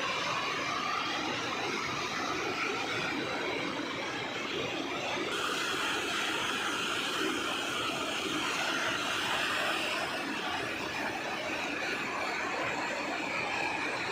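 A river in flood after the first heavy rain, its water rushing with a steady, even roar.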